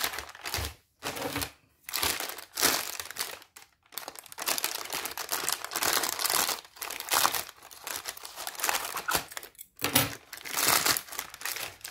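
Plastic postal mailer bag crinkling and rustling in irregular bursts with short pauses as it is handled and cut open with scissors.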